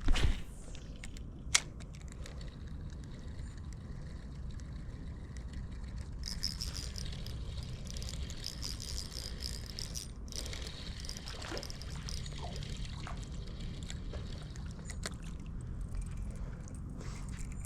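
Water splashing and trickling over a steady low rumble, with a sudden loud knock or splash right at the start and a sharp click shortly after.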